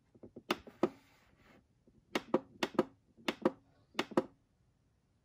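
Plastic buttons on a Casio G-Shock wall clock being pressed while setting it, giving sharp clicks that come mostly in close pairs, about five pairs in all.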